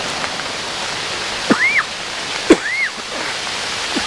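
Storm runoff gushing out of a drainage pipe outfall and cascading down a rocky bank: a steady rushing of water. About one and a half seconds in, and again a second later, a loud short call sweeps up in pitch and back down.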